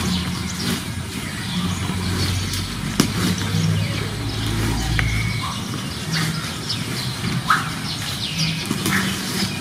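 Birds chirping in short high calls scattered throughout, over a low hum that comes and goes.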